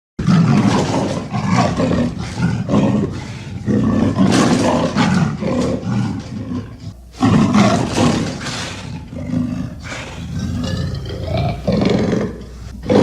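Oxalaia dinosaur sound effect: deep, growling roars in two long bouts, with a short break about seven seconds in, the second bout fading near the end.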